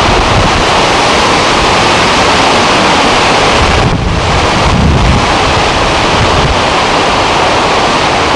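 Loud, steady rushing noise like surf or wind, swelling deeper about four to five seconds in.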